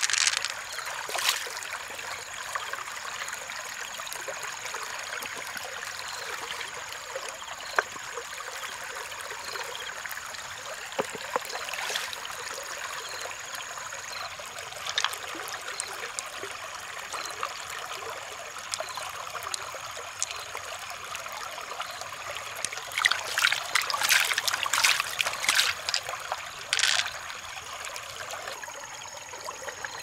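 Stream water trickling steadily, with sharp clicks and taps from pearls and mussel shells being handled. The clicks come loudest in a dense run a few seconds before the end.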